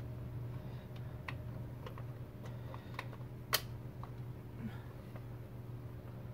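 Scattered light clicks and taps of a screwdriver tightening the newly fitted USB socket into the console trim, the sharpest click about three and a half seconds in, over a steady low hum.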